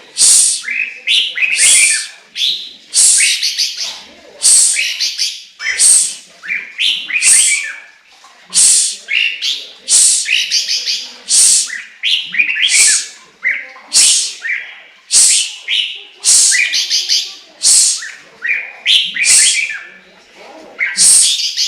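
Chinese hwamei singing loudly: an unbroken string of sharp, high, quickly varied notes, a new phrase about every second.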